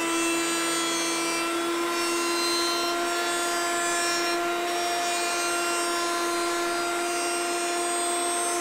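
Delta ShopMaster benchtop jointer running with a steady high whine, its cutterhead planing the edge of a board as it is fed across the tables against the fence.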